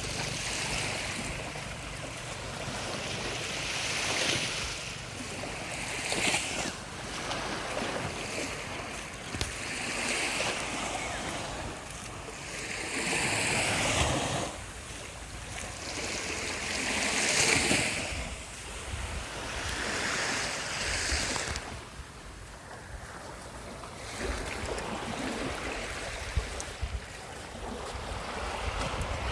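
Small, calm sea waves breaking and washing up a sandy beach, each wash swelling and falling away every three to four seconds, with a low rumble of wind on the microphone.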